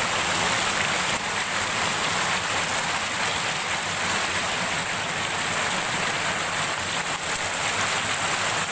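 Small waterfall pouring down and splashing into the pool right at the microphone: a steady, loud rush of falling water.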